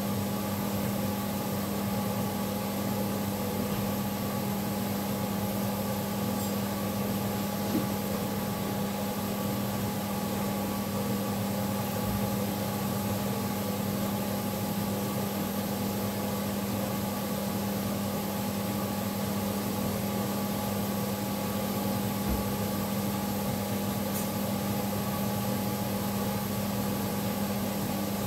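A steady, even hum with a constant hiss, unchanging throughout, with two faint low thumps along the way.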